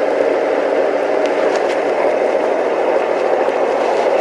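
Small tractor's engine running steadily.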